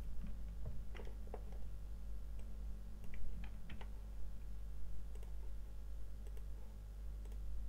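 Scattered soft computer mouse clicks over a steady low electrical hum.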